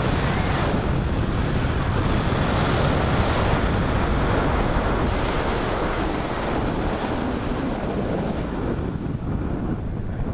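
Wind rushing steadily over a skydiving camera's microphone during a parachute descent, easing slightly near the end.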